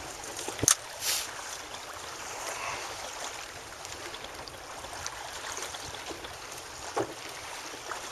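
Wind on the microphone and choppy sea water lapping around a small open boat, with a sharp knock a little under a second in and another short knock near the end.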